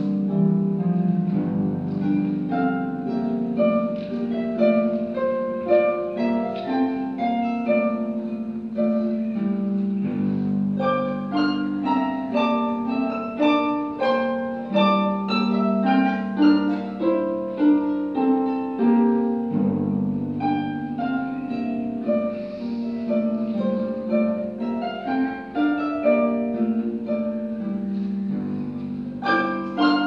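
Solo pedal harp being played: a continuous stream of plucked notes running in quick succession over held low notes, with the bass changing about ten seconds in and again near twenty seconds.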